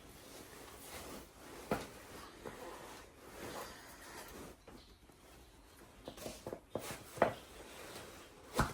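Handling noise in a small room: scattered light knocks and clicks over soft rubbing, with a few sharper knocks near the end.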